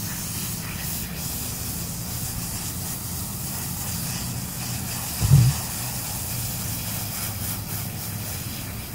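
Garden hose spraying water over a horse's coat, a steady hiss as the dirt is rinsed off. A brief low thump about five seconds in.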